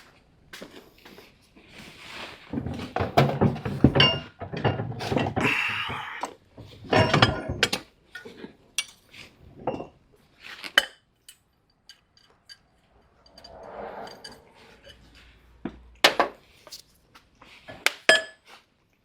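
Hand tools and small metal parts clinking and clattering during hands-on mechanical work, irregular. Busiest about three to eight seconds in, then scattered sharp metallic clicks, the loudest near the end.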